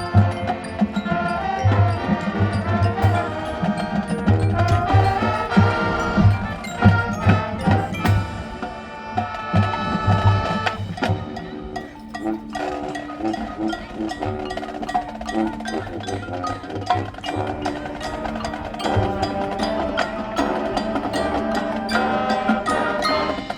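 High school marching band playing its field show: winds over a drumline and percussion. Rhythmic low drum hits drive the first half, the band eases into a softer passage of held low chords about halfway through, then builds again near the end.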